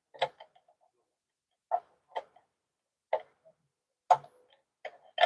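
Single sharp metallic clicks, about one every half second to a second, from a ratchet wrench turning a bolt down on a truck transmission.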